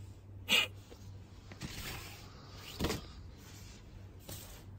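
Charcoal and a stainless tabletop charcoal grill being handled to knock down the coals: a sharp knock about half a second in, a scraping rustle, then another knock near three seconds and a lighter one near the end.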